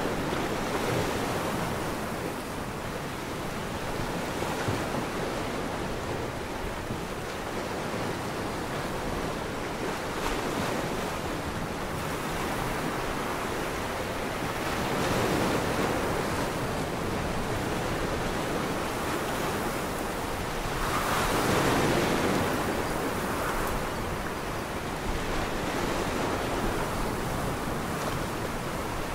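Ocean surf: waves breaking and washing in a steady rush of white noise, swelling louder twice, around fifteen seconds in and again around twenty-two seconds.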